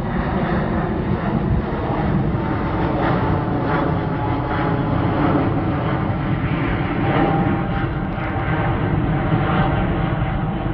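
Airbus A350-900's two Rolls-Royce Trent XWB turbofans running at climb thrust as the airliner climbs away overhead just after take-off: a steady, loud jet engine noise with a faint whine.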